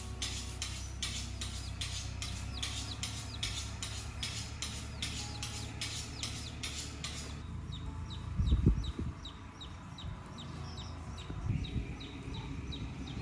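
Chickens clucking, with a steady run of short high chirps about three a second, and a brief low rumble of wind or handling about eight and a half seconds in.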